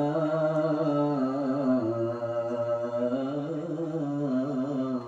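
A man reciting the Qur'an in melodic tilawah style through a microphone, drawing out one long ornamented note at the end of a verse. The pitch steps down about two seconds in.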